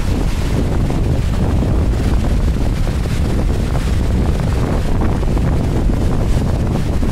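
Wind buffeting the microphone: a loud, steady, low rumbling that flutters without a break.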